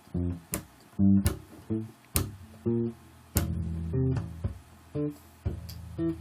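Bass guitar played as a drum: sharp, short thumps on muted strings in a rhythm, mixed with a low F root note that rings on, most clearly near the end.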